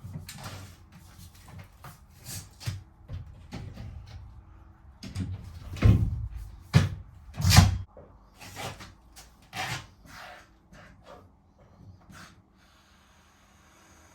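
Irregular knocks, thuds and clatter of timber battens and Acrow props being handled, with two loud thuds around six and seven and a half seconds in; the knocking dies away near the end.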